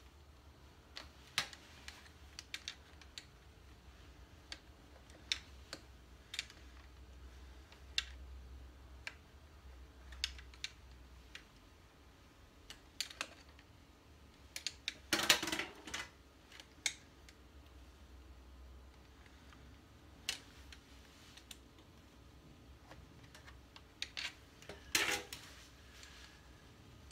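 Scattered small clicks and rattles of wires with metal bullet connectors being pushed by hand through a hole in a motorcycle engine casing, with two louder scraping bursts, about halfway through and near the end.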